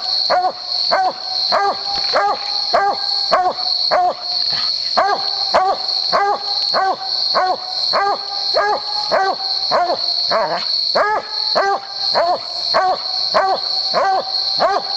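Black and tan coonhound barking treed: steady, even barks at just under two a second as it stands up against the tree trunk, with one longer, wavering bark about ten seconds in. A steady high pulsing chirr runs behind the barking.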